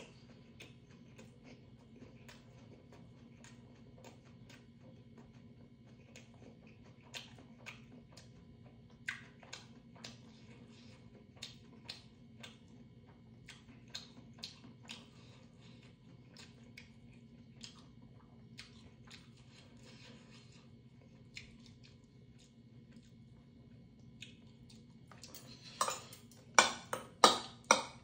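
Close-up chewing with scattered soft mouth clicks over a faint steady hum, then near the end a quick run of loud clinks as metal chopsticks and a spoon knock against a stainless steel bowl.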